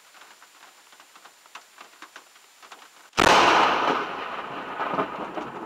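Light rain ticking on a car's windshield, then about three seconds in a very close lightning strike: a sudden, very loud thunderclap crack that crackles and dies away over the next two seconds, heard from inside the car.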